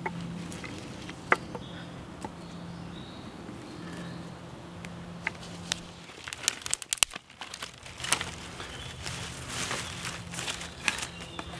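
Dry ash sticks and twigs being handled and laid down for a fire base: scattered light knocks, snaps and crinkling of dry litter, busiest in the second half.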